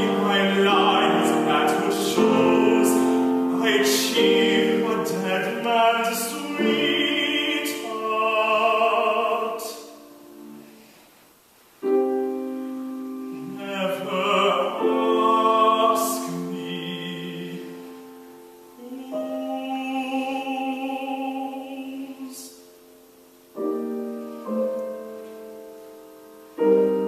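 Classical art song: a trained solo voice singing with piano accompaniment, with a brief lull about ten seconds in before the voice and piano resume.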